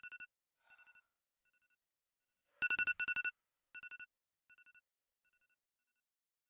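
Mobile phone ringing: a trilling two-note ring, loudest about two and a half seconds in, each ring followed by fainter repeats that fade away like an echo.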